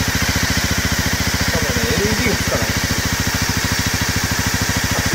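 Honda Dream 50's small single-cylinder four-stroke engine idling steadily with an even, rapid beat, newly running after its first start.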